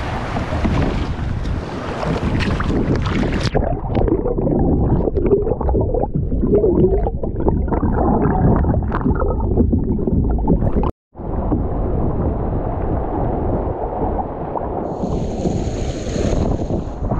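Wind buffeting the microphone over water splashing and sloshing around a sea kayak being paddled. The sound drops out for a moment about eleven seconds in.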